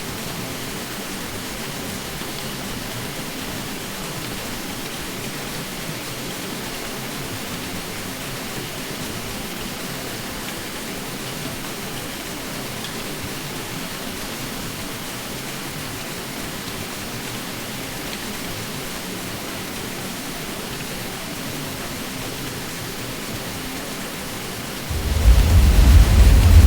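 Ceiling fan running with a steady, even hum and hiss. Near the end a much louder deep rumble cuts in suddenly.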